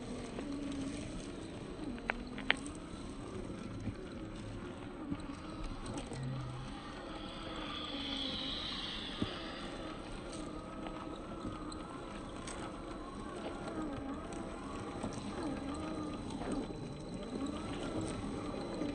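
Electric motor and gear whine of a 1/10-scale RC rock crawler, rising and falling in pitch as the throttle changes while it crawls. Its tyres crunch and click over loose stones a few times.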